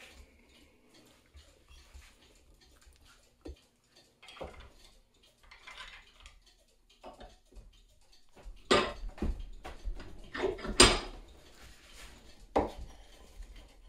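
Metal hand tools clinking and knocking against a bench vise and a metal camera housing as the housing's end nut is worked loose. Scattered light clicks, then a run of louder knocks and clatters in the second half.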